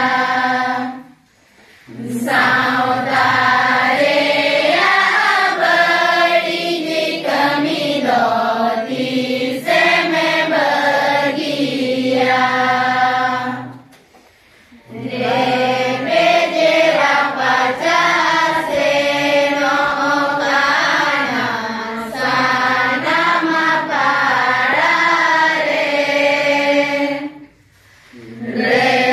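A group of young women and girls singing a Santali lagne song together in unison, in long phrases. The singing breaks off briefly about a second in, again halfway through, and near the end.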